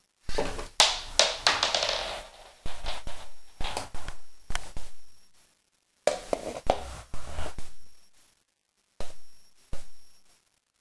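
Plastic Lego Mindstorms NXT catapult parts clicking and knocking as they are handled: quick irregular runs of clicks in the first half and again after about six seconds, then two single clicks near the end.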